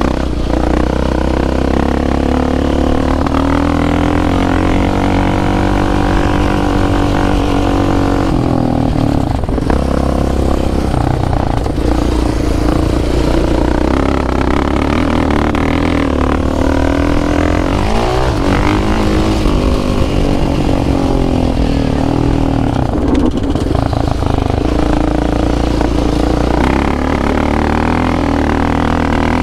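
ATV engine running on a trail ride, its pitch rising and falling with the throttle, with a sharp drop and quick climb in pitch about two-thirds of the way through.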